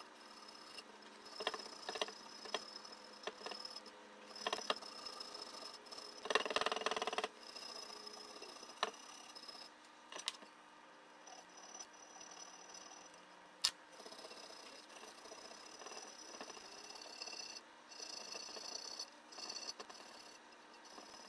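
Small hand-tool work on the aluminium lower crankcase half of a Polaris SLT780 two-stroke: light scraping and rubbing strokes with scattered clicks and taps of metal on metal, as burrs and high points are taken off the gasket sealing surface. One longer rubbing stroke comes about six seconds in, and a sharp click comes a little past halfway.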